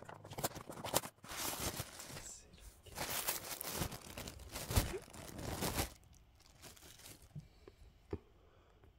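Thin paper packet being torn open and crinkled for several seconds, then a few light taps as a small plastic toy figure and its accessory are set down.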